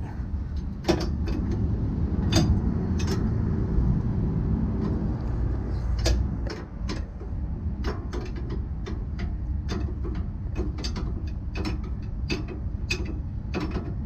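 Hand ratchet wrench clicking in short, repeated strokes as the mounting nuts of a trailer's air brake chamber are backed off, the clicks coming faster in the second half. A steady low rumble runs underneath.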